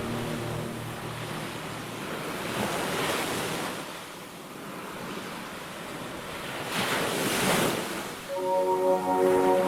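Ocean waves washing ashore, swelling twice, about three seconds in and again around seven seconds. Soft sustained instrumental music fades in over the waves near the end.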